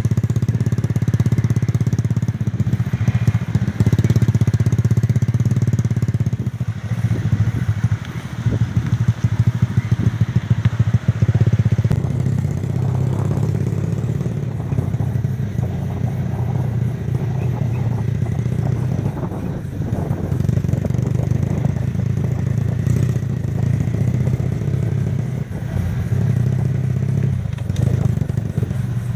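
Motorcycle engine running steadily while riding over a rough dirt and gravel road, with frequent knocks and rattles from the bumpy surface.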